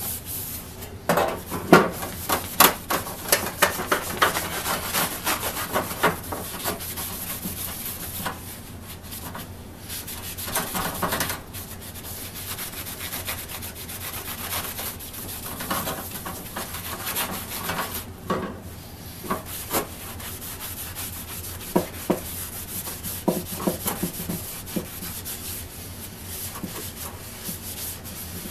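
A rag and gloved hands rubbing over the wooden handle of a hand saw, a steady scratchy wiping. Sharp clicks and knocks come thickly through the first half and only now and then after.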